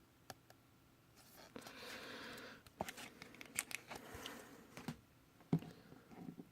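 Trading cards being handled at close range: a soft rustle about a second in, then a run of light clicks and taps as the cards are slid and flicked against one another.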